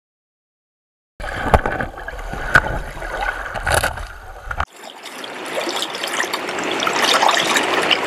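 After a second of silence, the muffled churn of river water heard from underwater, broken by three sharp knocks. About two thirds of the way in it cuts to the open-air hiss of a shallow river's current running over a stony bottom, growing louder.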